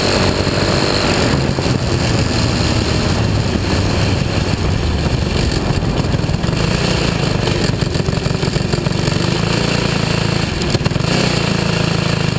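Dirt-track race car engine, running without its restrictor plate, pulling hard around the oval. The pitch steps up about halfway through, and the engine dips briefly near the end as the throttle comes off.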